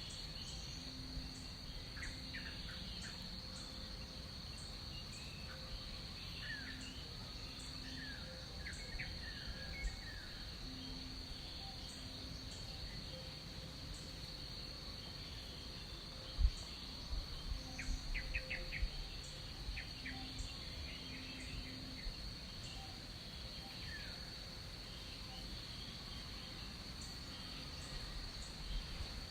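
Tropical rainforest ambience: a steady high-pitched insect drone, with scattered short bird chirps and a soft low repeated note. A single low thump about halfway through is the loudest moment.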